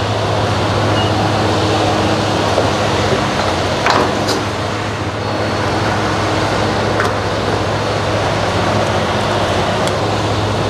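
Steady vehicle running noise: a low, even hum under a constant haze of road noise, with a brief click about four seconds in.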